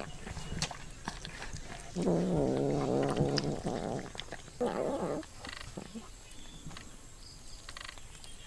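An animal's drawn-out low call lasting nearly two seconds, about two seconds in, then a shorter call near five seconds, with scattered light clicks.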